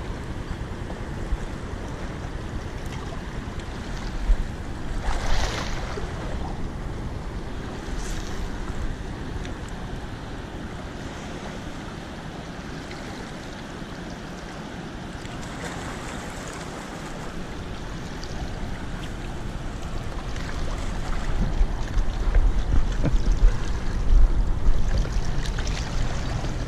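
Wind buffeting the microphone over a steady rush of moving water, with a brief hiss about five seconds in and stronger, gustier buffeting over the last few seconds.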